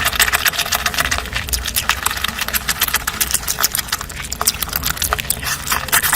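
Close-miked chewing and mouth sounds of someone eating, a rapid, dense run of clicks.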